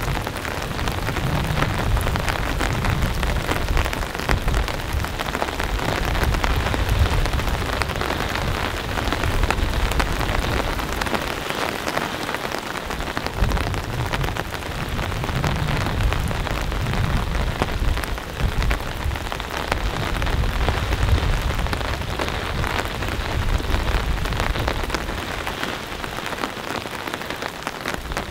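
Heavy, steady rain hissing down, with a low rumble underneath that swells and fades several times.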